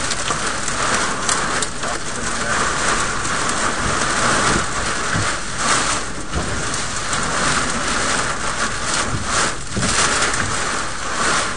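Heavy wind-driven rain beating on a parked car, heard from inside the cabin as a dense steady patter with many sharp hits, swelling and easing a little. This is the back end of a tornadic thunderstorm.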